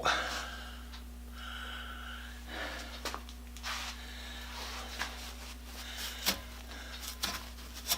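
Drill bit grinding faintly and in short separate stretches against a hardened broken steel bolt, barely cutting as the bit dulls, with a few small clicks near the end.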